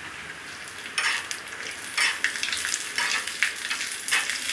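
Chana dal, peanuts and garlic cloves roasting in a little oil in a small tadka pan, with a light sizzle. A steel spoon stirs them, scraping and clinking against the pan in quick irregular strokes from about a second in.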